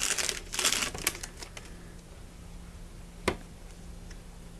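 Trading-card pack wrapper crinkling for about a second and a half as a pack is opened, then quieter card handling with one sharp click about three seconds in.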